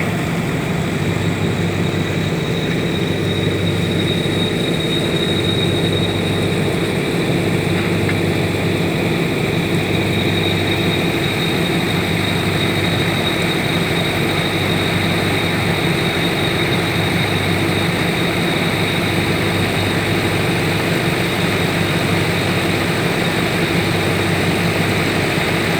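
Generators running steadily, a constant engine hum powering the dewatering pumps that keep water pumped out of the foundation excavation.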